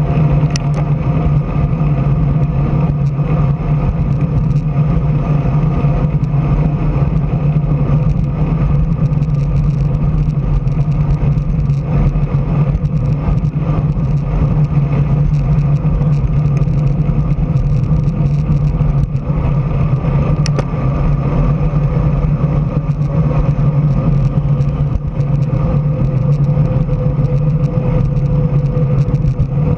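Steady rush of wind and tyre noise on a bicycle-mounted action camera riding at speed on an asphalt road, mostly a low rumble that holds even throughout.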